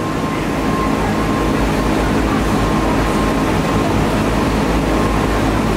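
Street traffic noise, with a truck's engine running close by as a steady low hum.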